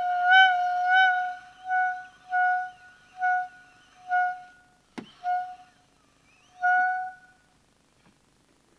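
Solo oboe playing one high note: held at first, then repeated as short, separate notes under a second apart, the last one about seven seconds in. A sharp click about five seconds in.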